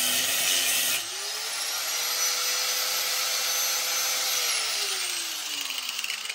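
Handheld grinder with an abrasive cut-off wheel cutting through metal knife-guard stock; the cut finishes about a second in. The wheel then runs free with a steady whine and spins down, its pitch falling slowly near the end.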